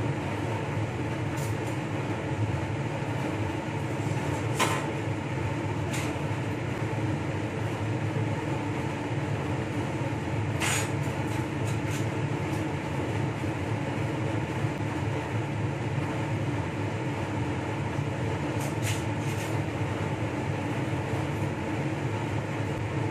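Steady hum and rush of a clean room's air-handling blower, with a few light clicks scattered through.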